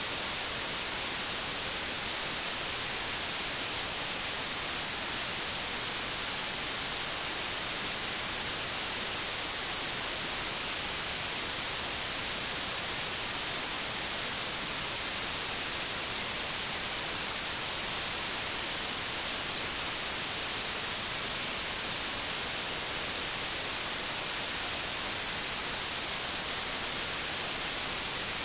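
Steady white noise test signal: an even, unchanging hiss with no tone or breaks.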